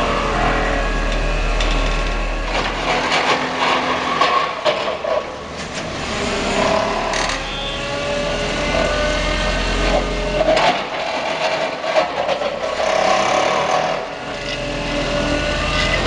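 Excavator-mounted vibratory hammer (vibro sinker) driving a steel sheet pile into the ground: a loud, continuous mechanical drone whose pitch wavers, with the excavator's diesel running underneath and a few sharp metallic knocks.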